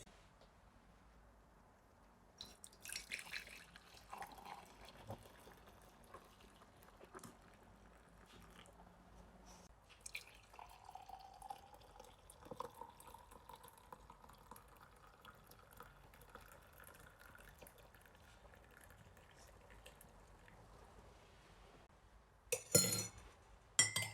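Hot ginger tea poured into a glass, faint, the pitch of the pour rising as the glass fills. Light clinks of glassware, with two sharp, loud clinks near the end.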